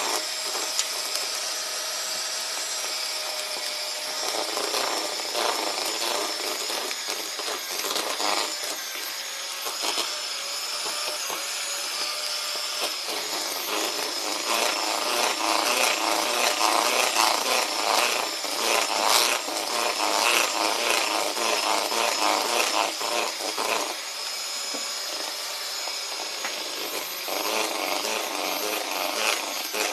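Miyako electric hand mixer running, a steady motor whine with its wire beaters whisking and scraping through thick cake batter in a plastic bowl. The scraping grows louder and rougher for several seconds around the middle.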